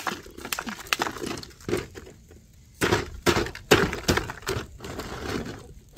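Ice being struck and broken up by hand: an irregular run of sharp cracks and crunching knocks, easing off for a moment about two seconds in, then the strongest strikes.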